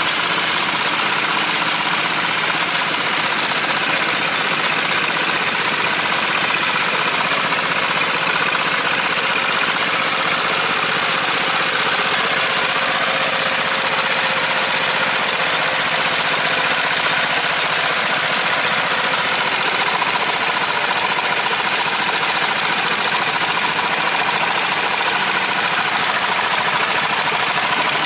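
Small farm machine's engine running steadily with a knocking, chugging note. The sound holds constant throughout.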